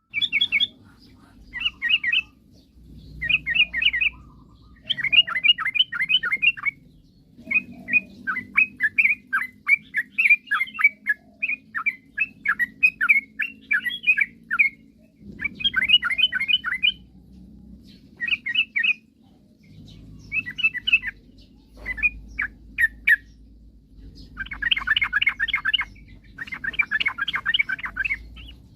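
Yellow-vented bulbul (trucukan) singing in repeated bursts of quick chattering notes, each phrase a second or two long, with short pauses between.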